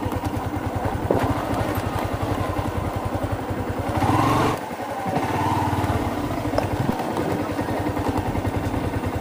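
Yamaha motorcycle engine running at low speed while the bike rolls along a dirt road, with steady even firing pulses. The engine picks up briefly about four seconds in, then eases off.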